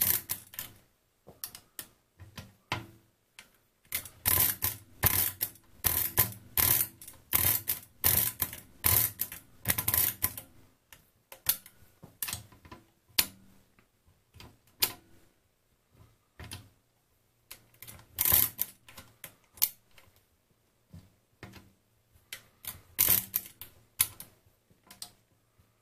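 Feliks-M pinwheel mechanical calculator being cranked through a division: repeated turns of the handle give runs of metallic clicks and clacks from the pinwheels and carry mechanism. The clicks are densest in the first ten seconds, with sparser clusters after.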